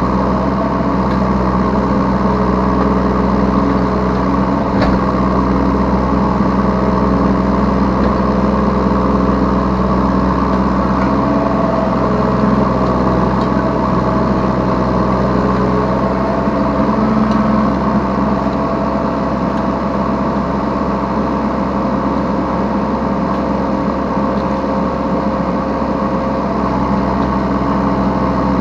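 Yanmar B3Σ 3-ton mini excavator's engine running steadily, heard from the operator's seat, with some of its tones shifting in pitch now and then and a few faint clicks.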